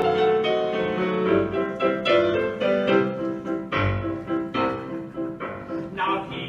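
Solo piano playing the accompaniment to a music hall song, with no voice. From about the middle it settles into a quickly repeated single-note figure.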